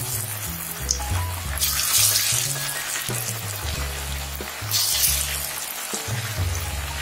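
Strips of snack dough deep-frying in hot oil in a kadhai, a dense steady sizzle that swells now and then. Background music with a low bass line plays under it.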